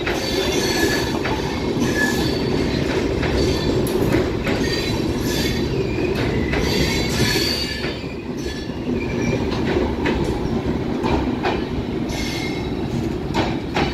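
Passenger coaches of an arriving express train rolling past along the platform. Steady rumble of the wheels, with short high-pitched wheel squeals coming and going and irregular clacks over the rail joints.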